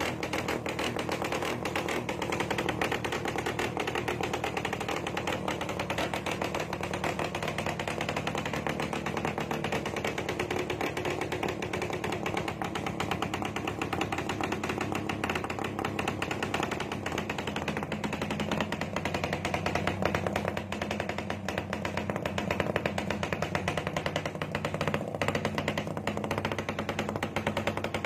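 Suzuki Raider 150 (first generation) single-cylinder four-stroke engine idling through an aftermarket exhaust, a steady, rapid, even pulsing beat with slight rises in level in the last third.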